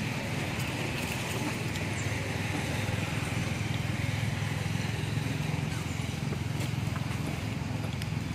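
Small motorcycle engine idling steadily, a low, even, rapidly pulsing run.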